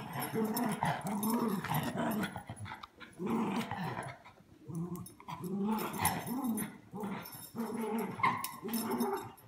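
Small dogs growling in play as they wrestle: a string of short growls, each rising and falling in pitch, coming in bouts with brief pauses.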